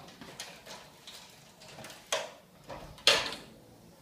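A few short knocks and rustles close to the microphone as a person moves right beside the camera, with two louder knocks about two and three seconds in.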